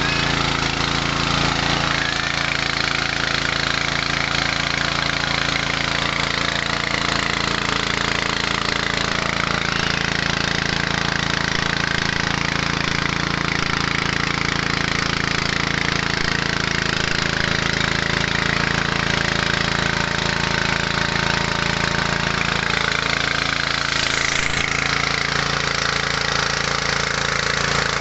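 A small 6.5–7 hp petrol engine running steadily, driving a mini rice huller-and-polisher machine, with a dense mechanical rush from the mill over the engine's even drone.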